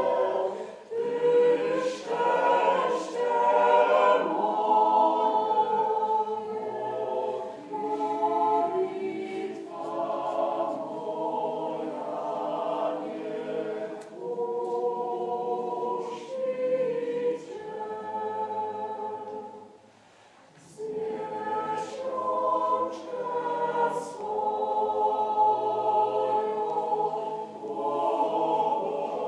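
Mixed choir singing a Christmas carol a cappella, with a brief pause between phrases about twenty seconds in.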